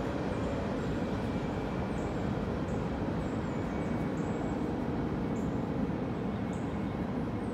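Steady low rumble of an empty coal train's freight cars rolling past on the rails, with faint short high chirps now and then.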